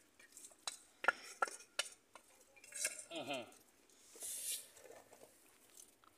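A wooden spoon scraping and clicking against a metal pot and a plastic dish as food is tipped out and a dry, crumbly farofa is stirred. There is a quick series of short knocks in the first couple of seconds and a brief scraping hiss a little after the middle.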